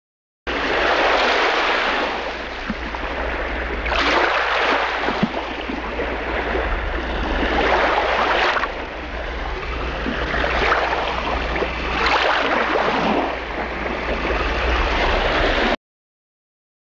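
Sea waves breaking on a shore, a swell of rushing water every three to four seconds over a steady low rumble. It starts about half a second in and cuts off abruptly near the end.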